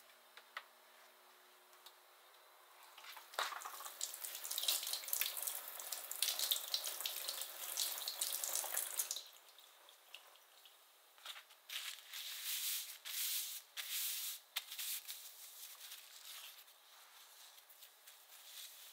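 Kitchen tap running into a steel sink for about six seconds and then shut off, followed by short bursts of splashing and dripping water as greens are rinsed and shaken by hand.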